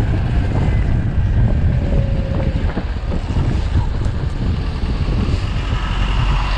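Strong wind buffeting the microphone of a rider on a 72-volt Sur-Ron electric dirt bike, a steady rumble with a few faint thin whines drifting through it.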